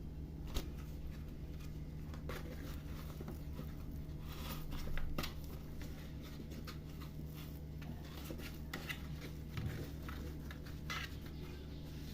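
Thin warqa pastry sheets crinkling and rustling in bursts as they are folded over a pastilla and tucked underneath, with a few light clicks and a steady low hum throughout.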